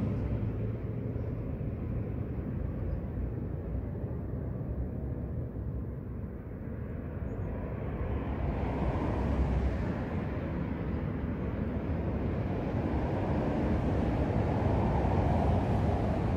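Road traffic rumble, dipping slightly and then swelling again about halfway through and near the end as vehicles pass.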